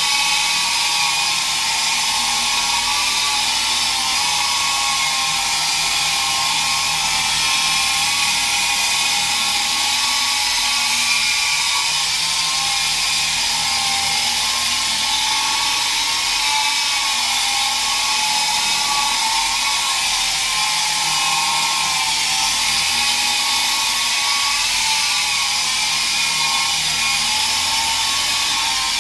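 A T-34 remote-control helicopter's electric motor and rotor whining steadily in flight. The pitch wavers slightly up and down with the throttle.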